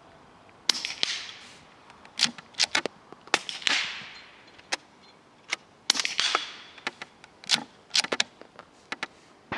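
Suppressed Browning .22 rimfire bolt-action rifle fired repeatedly: sharp cracks, some with a short echo, with metallic clicks of the bolt being cycled in between. The string starts about a second in.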